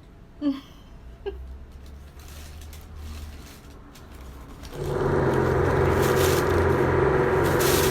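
A loud, steady machine hum with a low buzzing pitch starts suddenly about five seconds in and keeps going unchanged; before it there are only faint room sounds and a couple of brief soft sounds.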